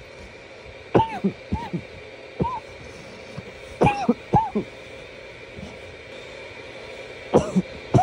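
A man coughing in short fits of several coughs each: one fit about a second in, a single cough a little later, another fit around four seconds, and a last one near the end.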